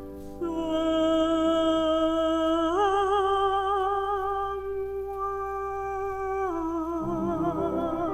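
Vocal group singing a wordless, hummed harmony on a 45 rpm record. The notes are held long with vibrato, and the chord steps up about three seconds in, then falls back near the end.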